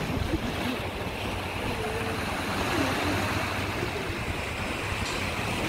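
Sea washing against the rocks below the cliff path, a steady rush mixed with wind noise, with a few faint voices in the middle.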